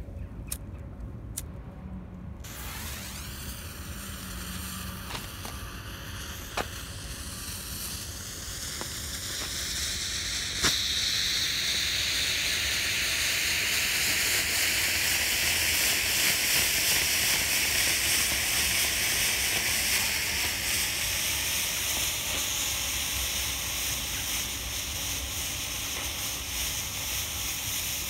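A few clicks of a lighter, then a black smoke bomb catches and hisses steadily as it pours out smoke, the hiss growing louder about ten seconds in.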